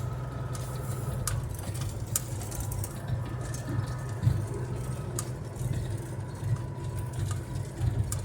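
Steady engine drone heard from inside a vehicle's cab while driving, with a few light clicks and rattles.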